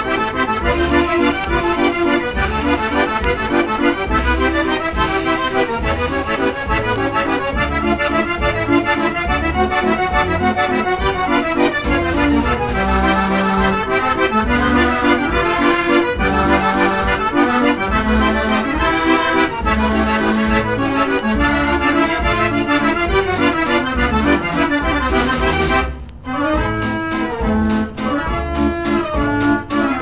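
The Jeanneke Mortier, a 92-key Mortier orchestral dance organ, playing a waltz from an LP record, its pipes and accordions sounding over a steady bass beat. Near the end the music breaks off for a moment and goes on more softly with longer held melody notes.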